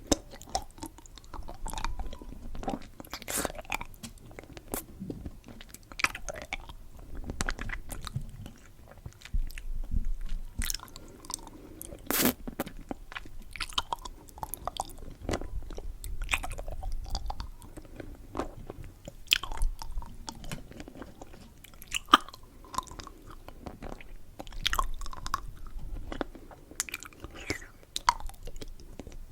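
Close-miked chewing and biting of candy: irregular sharp crunches and wet mouth clicks, one after another.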